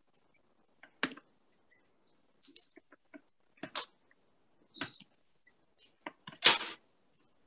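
Kitchen handling noises as glass bottles of oil and sauce are handled over a wok: a few short knocks and clicks, the loudest and longest near the end.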